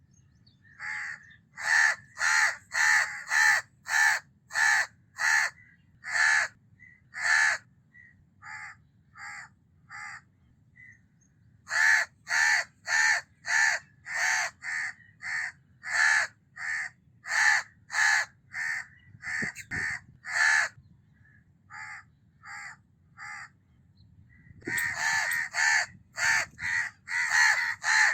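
House crows (Corvus splendens) cawing: runs of short repeated caws, about two a second, broken by stretches of fainter calls, with the caws crowding together and overlapping near the end.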